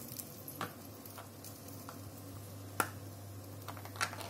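A few light clicks and taps, the loudest near three seconds in, as a lidded flan cup is handled and its lid opened, over a steady low hum.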